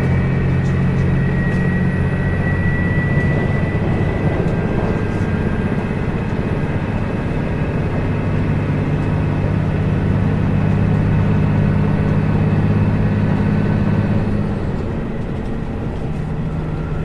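Diesel engine running steadily, its speed and level dropping slightly near the end.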